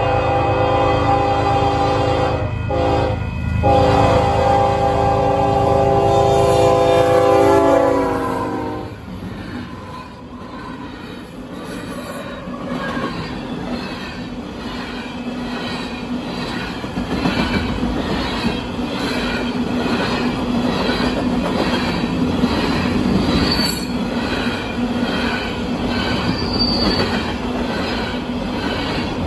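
Union Pacific freight train led by five diesel locomotives, passing at speed. The lead locomotive's multi-note air horn blows over the engines' rumble with a few short breaks, and its pitch drops as it passes about eight seconds in. Freight cars then roll by with a steady rhythmic clickety-clack of wheels and a faint steady wheel squeal.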